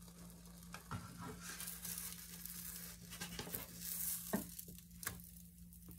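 A pancake sizzling faintly in a frying pan while a spatula scrapes under it and flips it, with a few sharp taps of the spatula and pancake against the pan, the clearest about four and five seconds in.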